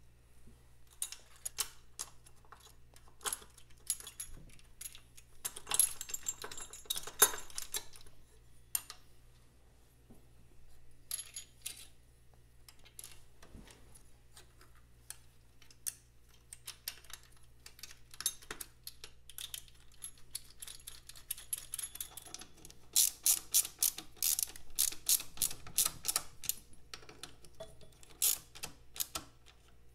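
Metal clicking and clinking of hand tools against bolts, a tab washer and an oil filter clamp bracket as they are fitted and tightened. There are two busy stretches of quick sharp clicks, one about a fifth of the way in and a longer one near the end.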